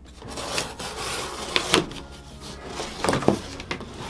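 Folding knife slitting packing tape on a cardboard box, a scraping rub for about the first second and a half. Then cardboard knocks and rubs as the box is handled and tipped over, with a few sharp knocks in the middle and near the end.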